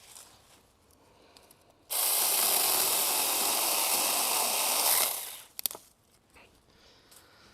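Saker mini cordless electric chainsaw running for about three seconds, its chain cutting into a small tree. It starts abruptly, winds down over half a second when released, and is followed by two quick clicks.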